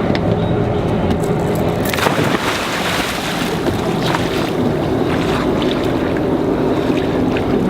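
Sportfishing boat's engine running steadily at idle, with a rush of splashing water starting about two seconds in and fading out over a second or so.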